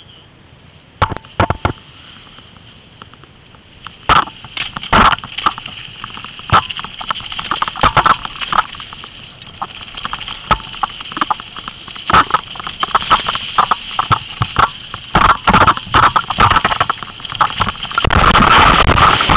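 Mountain bike rattling and clattering down a rough forest trail, with sharp knocks and bangs that come faster as the ride goes on. Near the end a loud continuous rattle lasts about two seconds.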